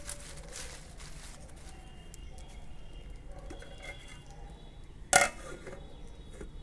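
Dry leaves and twigs crackling as they burn in a wood-fired clay stove, with many small snaps over a steady hiss. About five seconds in comes one loud metal clank as the lid goes onto the pot.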